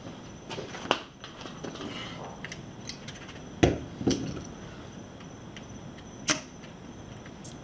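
A steel bottle jack and a car wheel being handled: a few separate knocks and clicks, the loudest a pair of knocks about three and a half seconds in, with another click about six seconds in. A faint steady high tone runs underneath.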